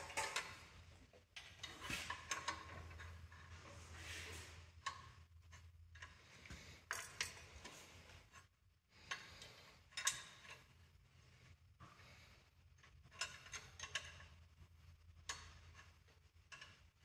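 Faint metal clinks, scrapes and clicks as a socket and a beam-style torque wrench are worked on the fuel-pump hold-down bolts of a John Deere 720 diesel. The clicks come in irregular clusters over a low steady hum.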